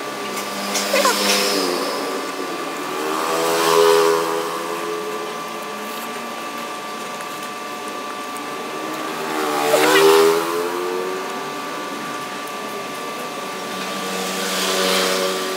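Road traffic: vehicles passing, swelling to their loudest about four and ten seconds in and again near the end, over a steady motor hum.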